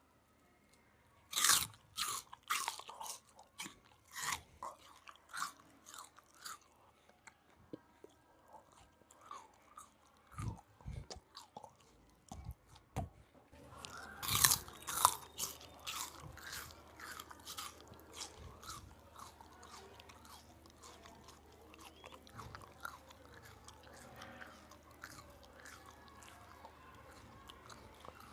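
A person chewing, with sharp crackly bites starting about a second and a half in and a loud cluster again around the middle, then softer, steadier chewing.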